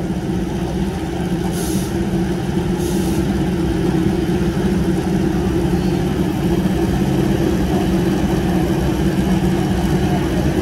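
Drag-racing motorcycle engines running steadily at the starting line, with no launch or rising revs. Two short hisses come about two and three seconds in.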